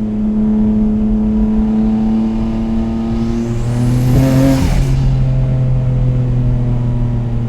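Nissan Skyline GT-R R33's RB26 twin-turbo straight-six, breathing through a Tomei titanium exhaust and heard from inside the cabin, running at steady revs while driving. About four seconds in the revs briefly rise, with a short rushing sweep, then settle to a lower steady note.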